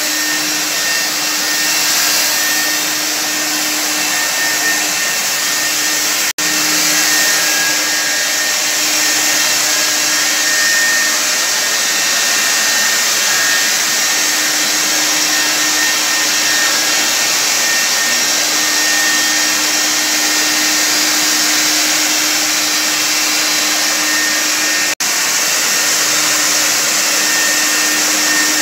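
Corded electric ULV cold fogger running steadily, its motor and blower giving a loud, even whine and hiss as it sprays disinfectant mist. The sound drops out for a split second twice.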